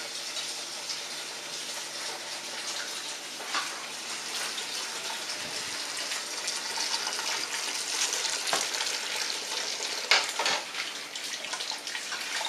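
Steady rushing hiss, with a few light knocks about three and a half seconds in and again near the end.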